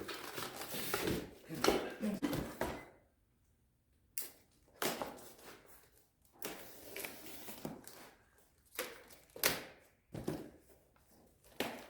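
Cardboard parts box being handled and cut open with a small Gerber pocket knife: rustling and scraping, a short pause, then a string of sharp clicks and knocks.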